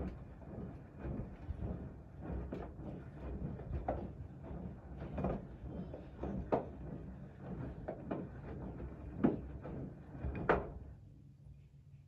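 Siemens front-loading washing machine drum turning a foamy wash: wet laundry tumbling and water sloshing, with irregular thumps and knocks over a steady rumble. It goes quieter near the end.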